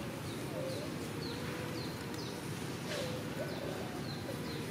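Birds calling: a steady run of short, high chirps about two a second, with a lower sliding call twice, near the start and about three seconds in, over a soft background hiss.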